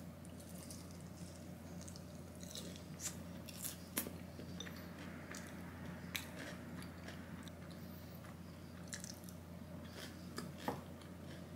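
Bite into a piece of fried chicken, then closed-mouth chewing, with scattered soft crunches and mouth clicks. A steady low hum runs underneath.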